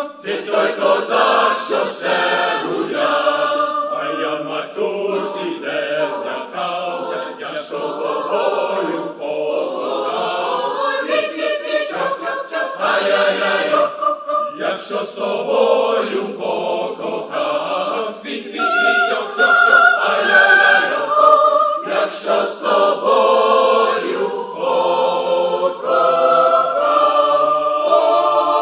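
A mixed choir of men's and women's voices singing a Ukrainian folk song in Ukrainian, the separately recorded home voices mixed together. The parts hold longer notes near the end.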